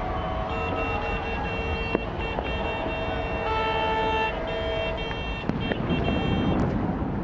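Horns sounding in several steady tones at once, breaking off and starting again a few times over a constant background rumble, with a few sharp pops.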